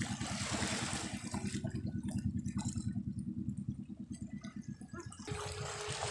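Sea water washing and lapping over shore rocks, over a low, rapid, even throbbing.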